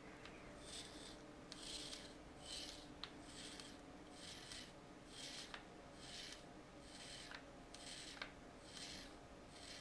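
Winding crown of a Rolex calibre 1556 movement turned by gloved fingers to set the hands. Faint soft rasping strokes come about once a second, with an occasional small click.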